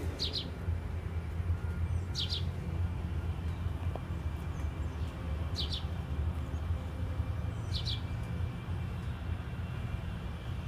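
A bird chirping four times, each a short high call, a couple of seconds apart, over a steady low rumble.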